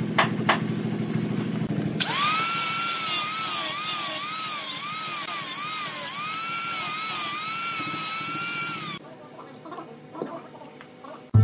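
Angle grinder with a wood-carving disc grinding into wood. Its high whine starts about two seconds in, dips in pitch again and again as the disc is pressed into the wood, and stops about nine seconds in. Before it there is a low hum with a few clicks.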